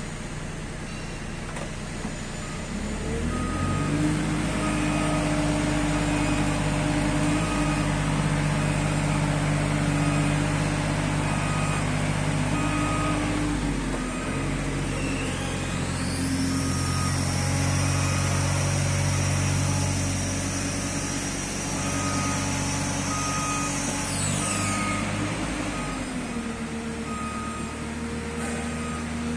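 Aerial work platform (boom lift) in motion under joystick control: its hydraulic drive runs steadily from a few seconds in until near the end, with a motion alarm beeping about once a second. A high whine rises about halfway through, holds for several seconds and drops back.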